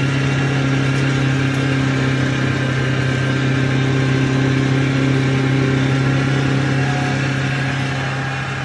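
Impact pulveriser grinding sawdust into wood powder, running steadily: a loud low hum with an even rushing noise over it as sawdust is fed in through the hopper. It grows slightly quieter near the end.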